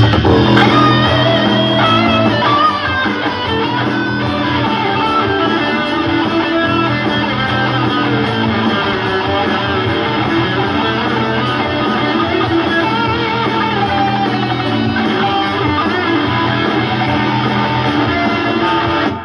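Playback of a just-recorded electric guitar part with a blaring guitar-amp tone. It stops abruptly at the end.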